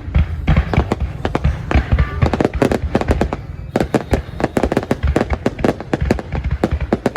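Fireworks exploding in a dense, irregular barrage of sharp bangs, several a second, thinning briefly a little past the middle.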